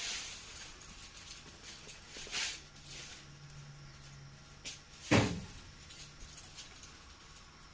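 Handling noises: a few light knocks and rustles, with one louder thump a little past five seconds in.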